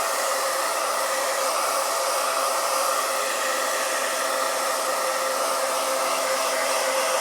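Hand-held hair dryer running steadily on a hot setting, a continuous rush of blown air with a faint steady motor whine.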